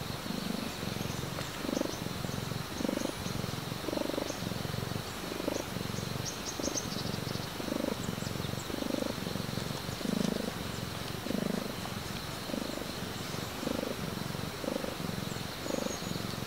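Cat purring steadily, a low rumble rising and falling with each breath in and out.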